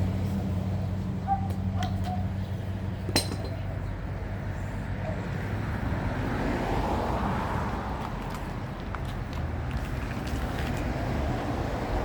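A motor vehicle's engine runs with a steady low hum that stops about three seconds in, at one sharp click. A low, even traffic rumble continues.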